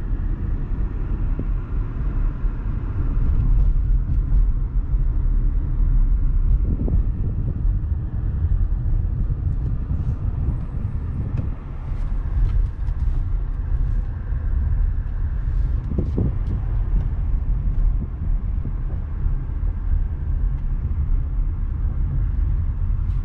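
Car being driven, heard from inside the cabin: a steady low rumble of road and engine noise.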